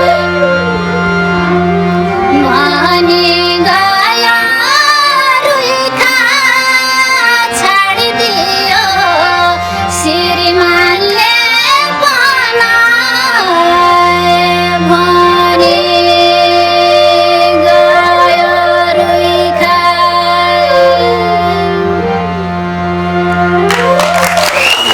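Nepali folk music: a high, wavering melody line, likely a woman's wordless singing, over a steady held drone. Applause breaks in near the end.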